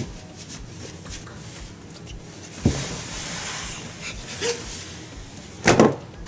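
Scuffling and knocking inside a large cardboard box as someone climbs around in it, with rustling in between: a sharp knock about two and a half seconds in, then a second of rustling, and a louder thump and scuff near the end.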